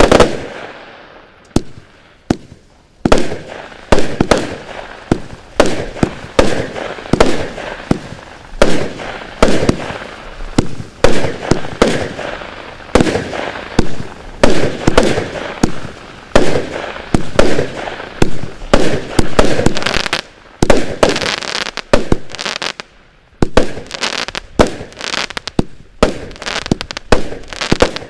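A 209-shot Category 2 firework barrage cake firing a rapid, uneven string of shots, each a sharp bang with a short decaying tail. There are brief pauses about two seconds in and again about two-thirds of the way through, and the shots come quicker toward the end.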